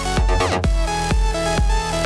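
Background electronic dance music with a steady kick-drum beat about two beats a second and a short falling sweep near the start.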